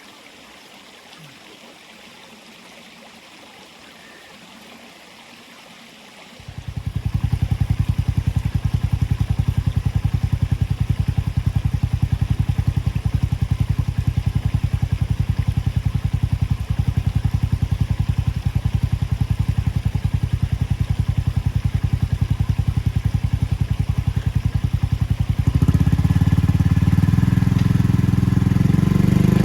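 Faint steady rushing at first; then, about six seconds in, a vehicle engine comes in abruptly and runs steadily with a fast, even firing pulse. Near the end it gets louder and deeper, as under more throttle or load.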